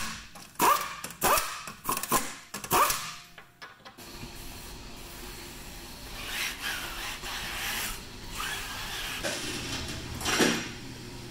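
Impact wrench run in about five short, quick bursts, tightening a wheel's lug nuts. After about four seconds the sound changes to a steady background hum with light rubbing and a louder scrape near the end.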